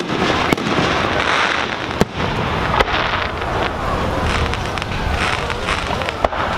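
Aerial firework shells bursting overhead: a handful of sharp bangs at irregular intervals over a steady wash of noise.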